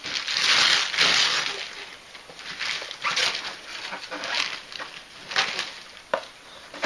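Wrapping paper being torn off a present: a long rip near the start, then several shorter tearing and rustling bursts.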